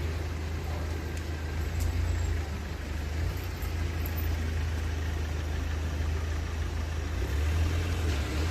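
Steady rain noise with a strong, steady low rumble underneath.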